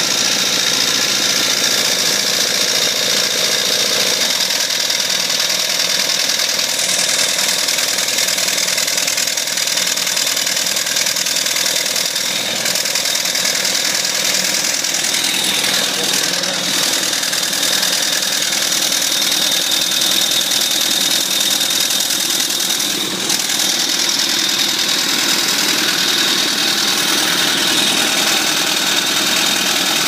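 An 8 hp single-cylinder four-stroke gas engine converted to steam, running steadily with a rapid, even beat while it drives a belted induction motor as a grid-tied generator. Its exhaust steam jets out with a loud, steady hiss.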